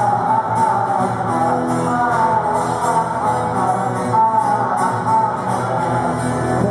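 Music with a strummed guitar and a singing voice.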